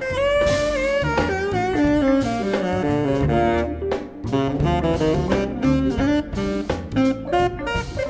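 A jazz big band playing: a horn melody over bass and drums.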